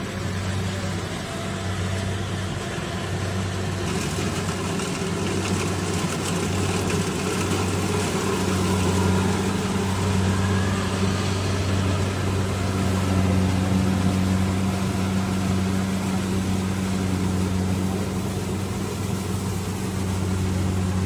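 Rice combine harvester running with a steady engine drone and low hum. About four seconds in, a harsher hiss joins it.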